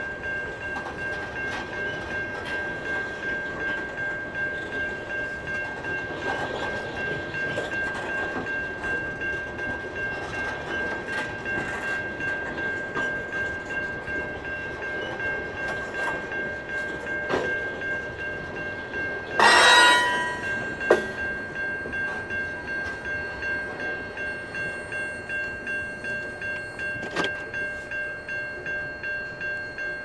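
Freight cars rolling through a grade crossing, their wheels knocking over the crossing now and then, while the crossing signal bell rings steadily about twice a second. About twenty seconds in comes a loud, horn-like blast lasting about a second.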